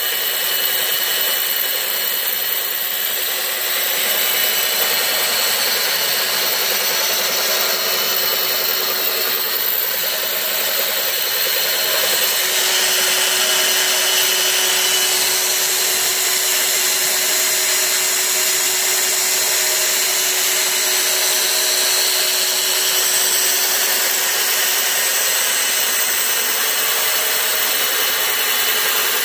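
Heavy electric drill motor running steadily, turning a boring bar through a universal-jointed shaft to line-bore the worn cast-iron bull gear bearing bores of a windmill head, a steady whine throughout.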